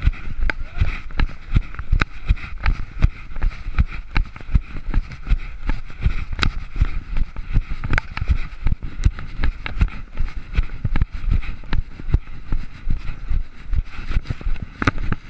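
Footsteps over dry grass and dirt, heard as irregular thumps several times a second, with the body-carried camera jostling and a low wind rumble on the microphone.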